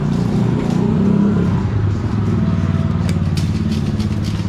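A motor vehicle engine running, a loud low steady drone, with a quick string of sharp clicks starting about three seconds in.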